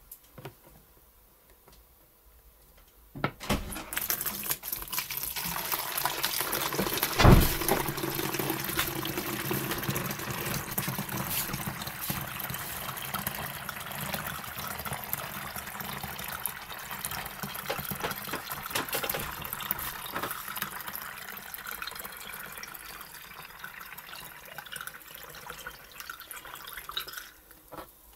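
Lingonberry liqueur poured in a steady stream into a 1.5-litre plastic bottle, starting about three seconds in and stopping shortly before the end. One loud knock comes about seven seconds in.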